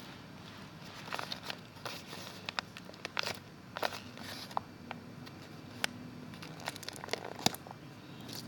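Packaging crinkling and rustling as it is handled, in irregular short bursts with scattered small clicks.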